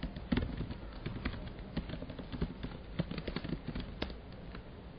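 Computer keyboard keys clicking in quick, irregular keystrokes as a shell command is typed.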